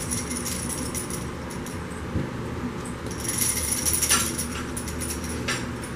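French Bulldog puppies scrambling and playing with toys on a fleece blanket, with soft rustling and a brief bright clinking jingle around the middle, plus a couple of light taps.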